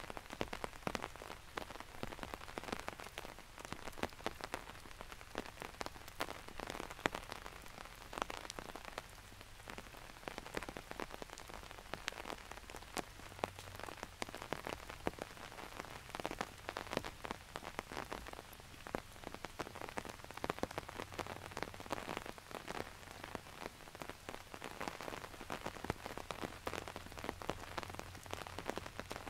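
Steady rain: a dense, irregular patter of separate drops tapping close by over a soft wash of rainfall.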